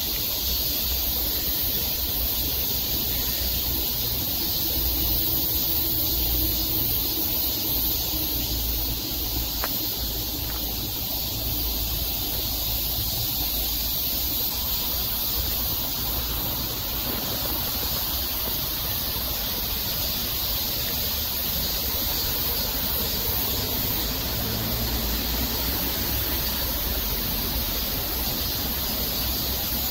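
Steady hiss of rain falling outdoors, with a low, uneven rumble of wind on the phone's microphone.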